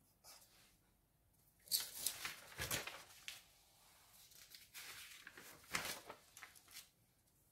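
Sheets of paper being slid and handled on a table, rustling in two bursts of a second or two each.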